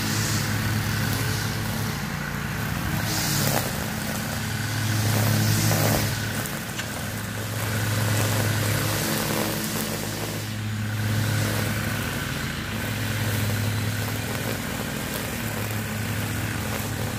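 An engine running steadily under a constant hiss, its level swelling and easing every few seconds.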